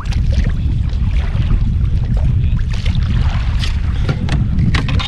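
Steady low rumble of wind buffeting the microphone on a kayak, with a few light clicks in the last couple of seconds.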